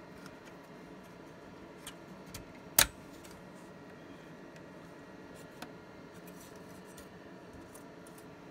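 Steady faint machine hum with a few light clicks, and one sharp click just under three seconds in.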